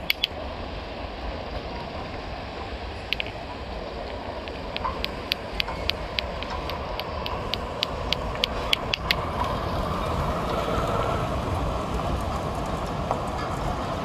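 Steady outdoor traffic noise with a run of sharp, rapid clicks, about three or four a second, from about five to nine seconds in.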